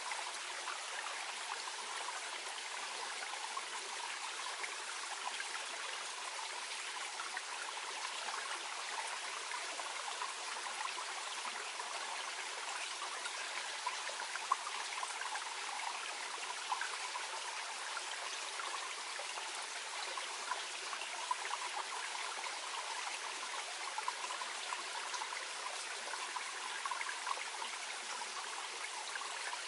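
A small, gently flowing mountain stream babbling and trickling steadily over stones, with a fine splashing texture and an occasional slightly louder splash.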